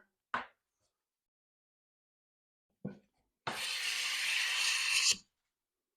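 A single stroke of a No. 6 fore plane across a pine board, the iron cutting a shaving for just under two seconds before stopping. It is preceded by a couple of faint knocks.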